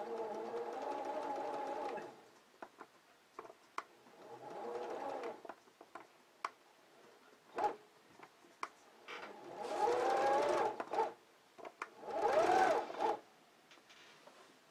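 Singer Inspiration 4210 sewing machine, retrofitted with a heavy-duty DC motor under microcontroller control, running in four short bursts whose pitch rises and falls with pedal pressure, with small clicks between them. It is in needle-down mode, where each release of the pedal brings the needle to rest in the down position.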